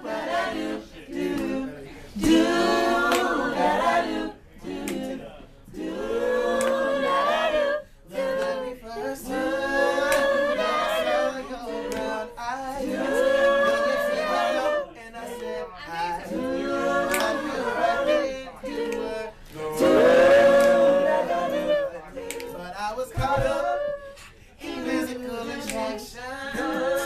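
Voices singing a cappella, in phrases of a second or two broken by short pauses.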